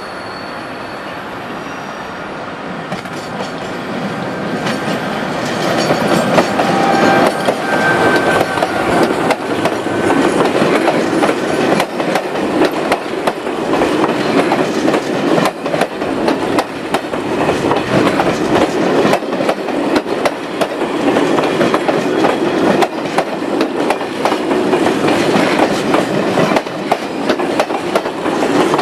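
Electric-locomotive-hauled passenger train approaching and then running past close by. From about six seconds in, the coaches' wheels clatter steadily over rail joints and points, with a brief wheel squeal around seven seconds in.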